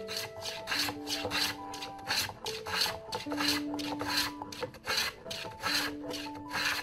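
A hand tool rasping back and forth over wood in quick, even strokes, about three a second, over soft background music.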